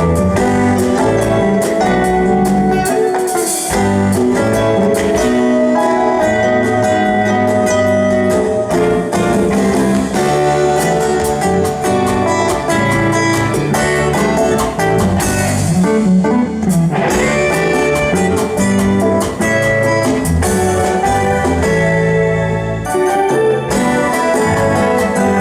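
Live band playing an instrumental piece, with guitar and keyboard parts over a steady drum beat.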